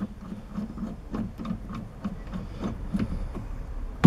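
Steady rhythmic mechanical clicking, about three clicks a second over a low pulsing hum, at the headstock of a 100-year-old lathe as the drawbar is fed through the spindle and threaded in.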